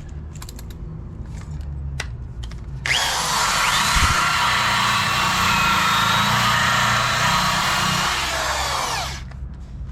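Wire-wheel brush on a power tool scrubbing a steel frame rail, stripping paint and seam sealer down to bare metal: a harsh, loud scouring noise that starts about three seconds in, lasts about six seconds, then winds down as the tool stops.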